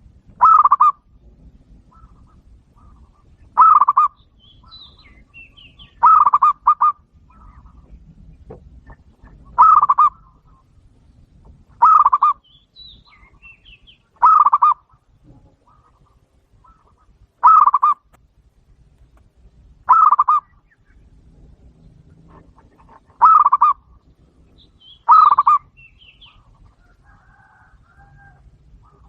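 Dove cooing loudly and repeatedly: a short call about every two to three seconds, some of them doubled, with faint small chirps in between.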